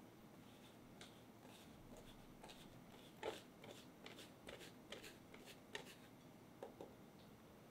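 Fine-mesh stainless steel sieve shaken and tapped over a glass bowl, sifting cocoa powder and flour: a string of soft, uneven rattling taps, the strongest about three seconds in.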